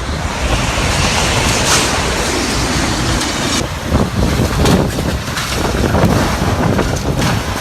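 Typhoon-strength wind gusting hard, with heavy buffeting on the microphone that surges unevenly.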